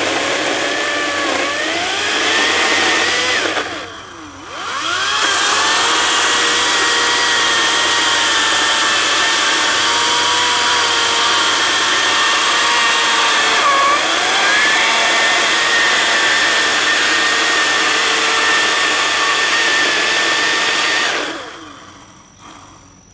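Echo 58V battery-powered chainsaw's electric motor whining as the chain cuts through a log, its pitch sagging and recovering with the load. About four seconds in it slows almost to a stop and spins back up, and near the end it winds down and stops, the kind of random shut-off the owner blames on a design flaw in this saw.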